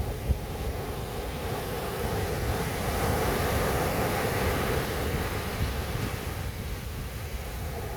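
Sea surf: a wave breaks and washes in, swelling about two seconds in and easing off toward the end, over a steady low rumble of wind on the microphone. A brief thump of wind on the microphone comes right near the start.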